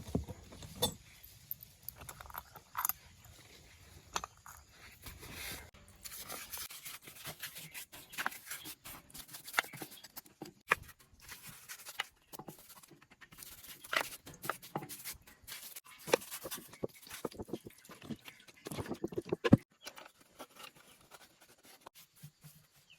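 Irregular clicks, taps and scrapes of hand work on a diesel engine, as tools and metal parts are handled, with a louder cluster of knocks near the end; no engine is running.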